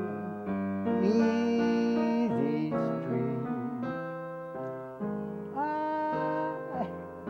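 An elderly man singing along with an upright piano: long held vocal notes, some sliding in pitch, over piano chords.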